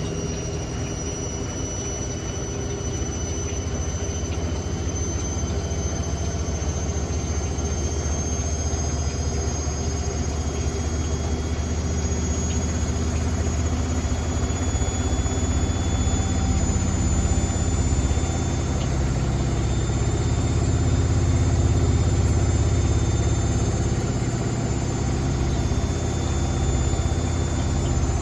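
Hotpoint WML540 Aquarius washing machine spinning with its door open: the motor and drum make a steady, loud whine that climbs slowly in pitch as the spin speeds up.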